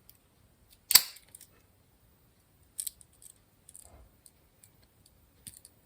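Small metal clicks from a Victorinox Compact Swiss Army knife being handled, its tools snapping open or shut: one sharp click about a second in, then several fainter clicks and ticks.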